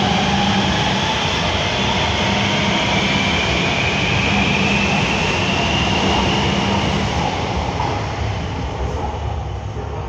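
Series 500 (Fleet F) metro train pulling away and accelerating, its traction inverters whining in tones that rise steadily in pitch over the rumble of wheels on rail. The sound fades from about seven seconds in as the train moves off.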